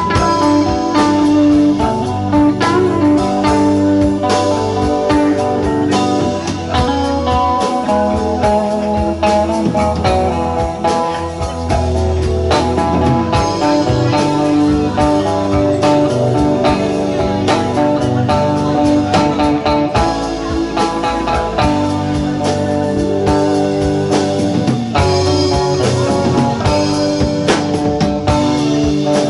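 Live band playing together: electric guitar, bass guitar, Nord Electro keyboard and drum kit.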